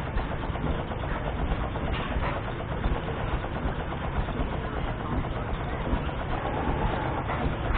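An engine running steadily, a low even rumble without a change in speed.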